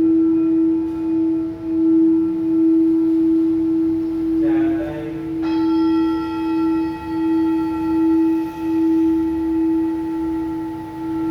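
Tibetan singing bowl played by circling its rim: a steady low hum that swells and fades about once a second, with higher ringing overtones. About halfway through there is a brief buzzy rattle, after which brighter upper tones ring on over the hum.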